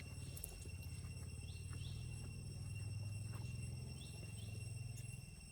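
Outdoor ambience: a steady high insect drone with a low rumble underneath that swells midway, and a few short rising chirps, two near the start and two near the end.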